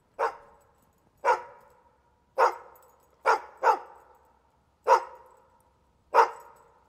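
Small long-haired dog barking: seven single, sharp barks about a second apart, with two in quick succession midway, each trailing off in a short echo.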